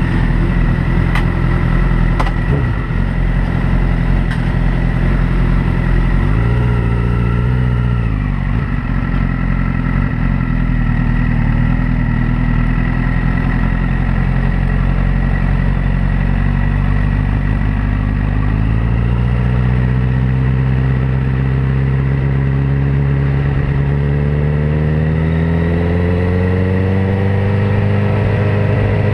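Sport motorcycle engine heard close up from the bike itself, running at low revs as it rolls slowly, with a brief rise and fall in revs about six to eight seconds in, then a slow steady rise in revs over the last ten seconds as it pulls away gently.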